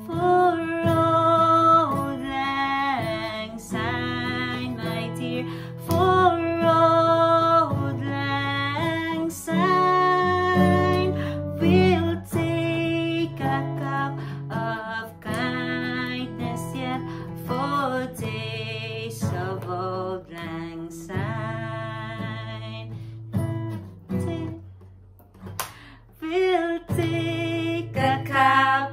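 Acoustic guitar strummed while women sing along with long, held notes; the music thins out briefly a little before the end, then picks up again.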